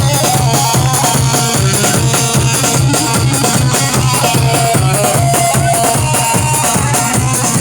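Siirt regional folk dance music: a steady, driving drum beat under a wavering melody.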